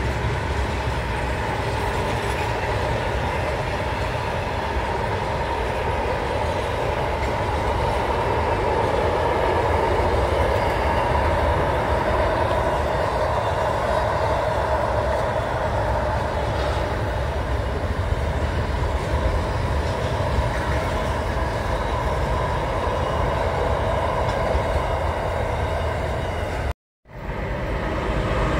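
Container freight train wagons rolling over a girder rail bridge: steady wheel-on-rail noise that goes on without a break. The sound drops out for a moment near the end and another train is then heard approaching.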